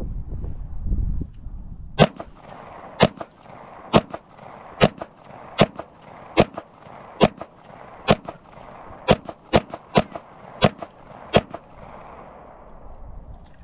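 Beretta 92 9mm pistol firing 115-grain full metal jacket rounds, about thirteen shots starting about two seconds in, roughly one a second and quickening near the end, each with a short echo.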